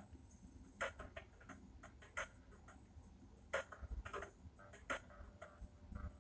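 Faint, irregular clicks and taps of a spoon scraping soaked bulgur out of a saucepan into a glass bowl, with a small cluster of taps in the middle.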